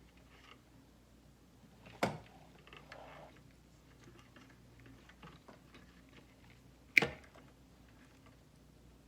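Wire cutters snipping through harness wires twice, about five seconds apart, with faint rustling of the wires being handled after the first cut.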